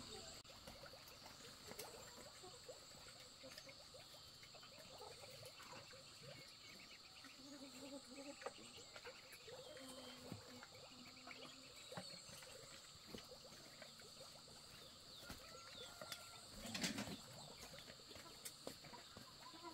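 Near silence: faint outdoor ambience with a steady high-pitched insect drone, scattered faint clicks and knocks, and one louder knock about seventeen seconds in.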